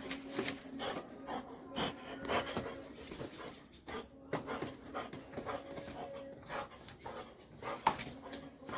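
Doberman pinscher panting, with scattered clicks and scuffs throughout.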